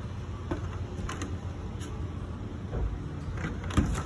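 A few short clicks and knocks from a front door being handled and opened, the loudest near the end, over a low steady rumble.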